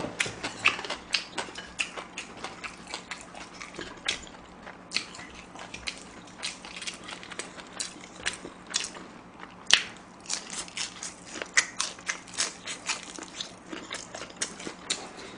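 A person chewing and biting food close to the microphone: a steady run of small wet clicks, with one sharper click about halfway through.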